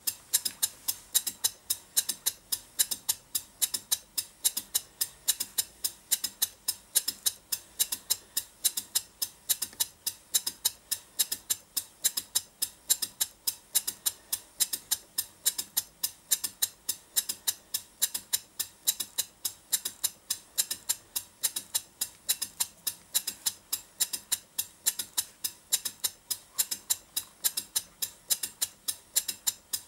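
Stuart Turner Twin Victoria model twin-cylinder horizontal mill engine running steadily on compressed air: an even, quick rhythm of sharp, hissing exhaust puffs, several a second.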